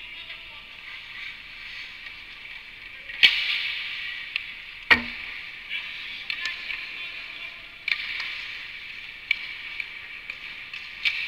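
Ice hockey skates scraping and carving on the ice in repeated bursts, with sharp cracks of sticks and puck. The loudest is a hard crack about five seconds in, with a low thud.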